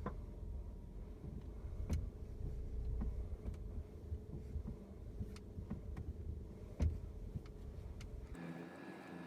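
Sharp, irregular clicks and knocks from a car's front shock absorber as the steering is turned, over a steady low hum. The click comes from the shock absorber twisting as the suspension turns, which the owner traces to the left front shock absorber. The sound changes abruptly near the end.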